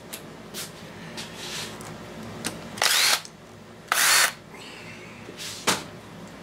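Cordless drill/driver run in two short bursts about a second apart, its motor whining up in pitch each time. A sharp click follows near the end.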